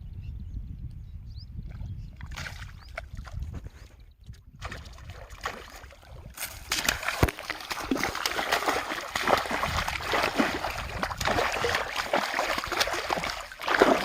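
River water splashing and sloshing: a low rumble at first, then from about six seconds in a dense, continuous run of splashes that peaks near the end.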